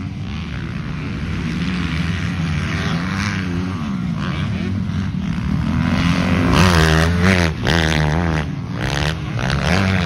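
Several motocross dirt bikes racing, their engines revving up and down through a corner. The sound gets louder from about six seconds in as two bikes pass close by.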